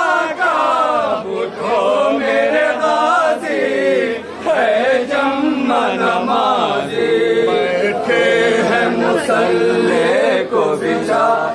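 Group of men chanting a Muharram mourning lament (nauha) together, loud and unbroken.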